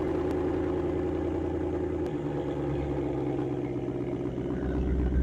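Ford Mustang GT's 5.0-litre V8, with factory active exhaust and a resonator delete, idling steadily after a cold start. The exhaust note changes slightly about two seconds in.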